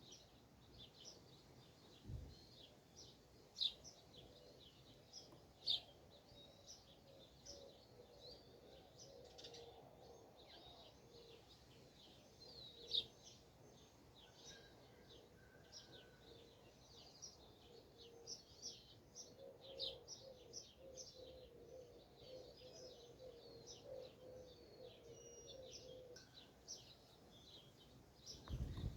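Small birds chirping and twittering continuously at a distance, many short high calls overlapping, with a faint low pulsing tone underneath for a while in the second half.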